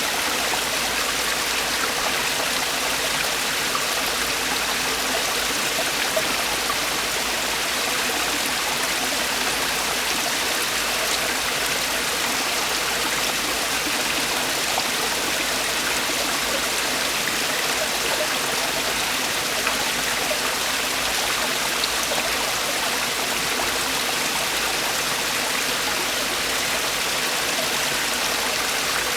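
Mountain stream water falling and splashing over rocks in a steady, unbroken rush.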